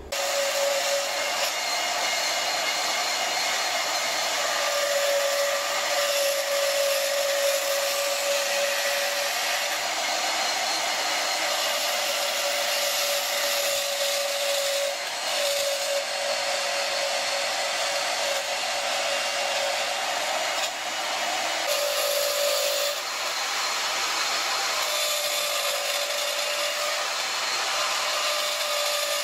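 Power band saw running steadily with a motor whine, its blade cutting a shape out of 10-gauge brass plate, with brief dips about three-quarters of the way through.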